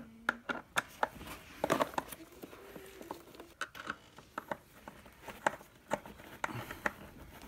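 Irregular clicks, taps and crinkles of a new door lock's packaging being opened and its parts handled.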